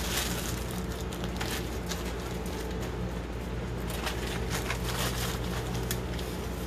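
Brown sugar shaken out of a plastic bag onto a rack of beef ribs on foil, heard as a few light rustles and taps over a steady low hum.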